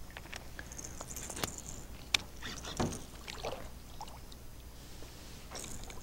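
Quiet handling sounds of landing a hooked peacock bass beside an aluminium boat: a few scattered clicks and light knocks of rod, reel and lip grip, over faint water sounds.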